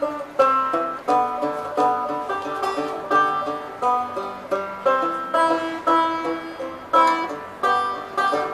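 Four-string resonator banjo played with the fingers: chords struck about twice a second, each ringing briefly and fading.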